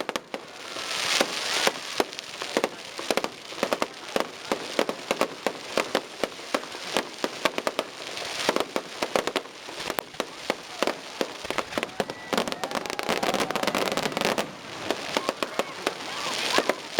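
Fireworks display: a dense run of sharp bangs from bursting shells, many close together, with stretches of hissing crackle.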